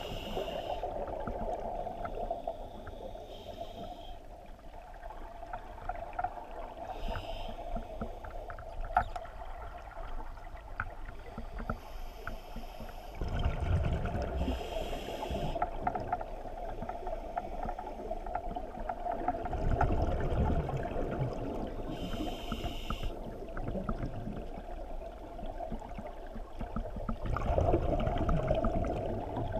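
A scuba diver breathing through a regulator underwater: short hissing inhalations every few seconds, alternating with longer rumbling washes of exhaled bubbles.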